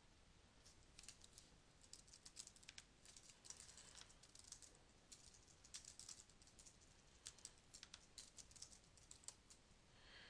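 Faint computer keyboard typing: irregular runs of keystroke clicks, starting about half a second in.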